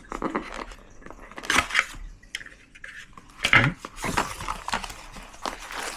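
Hands handling a cardboard box and lifting out its inner tray: scattered taps, scrapes and light clicks of cardboard and plastic, with a couple of louder knocks about one and a half and three and a half seconds in.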